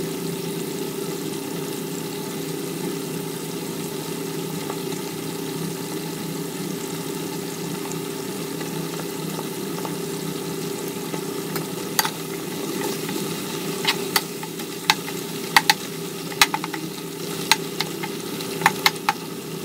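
Tuyo (dried fish) frying and bubbling in olive oil in an aluminium wok, over a steady low hum. From about two-thirds of the way in come a run of sharp clicks and taps as a spatula stirs against the pan.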